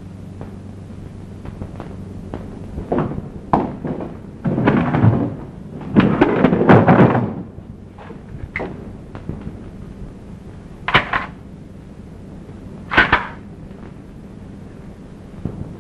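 A run of heavy crashes and bangs a few seconds in, followed by two single sharp bangs near the end, over a steady low hum.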